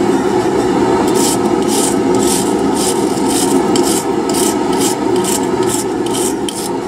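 Even scraping strokes across the twisted steel bar, about two a second, starting about a second in, over a steady low roar.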